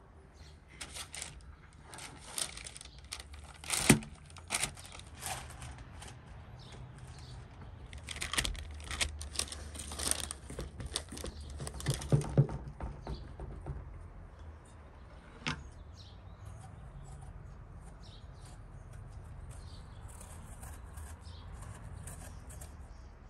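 Hands working dough and parchment paper: irregular rustling and crinkling of the baking paper with soft patting and several sharp knocks against the pan and bowl, loudest around four seconds and twelve seconds in. Near the end, fainter scraping and rustling as a knife peels a piece of fruit.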